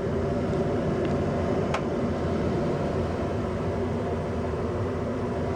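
1994 Tempstar SP80 gas furnace running steadily just after ignition: the draft inducer motor and lit burners make a steady hum and rush. A single sharp tick comes about two seconds in, from the heat exchanger metal expanding as it warms.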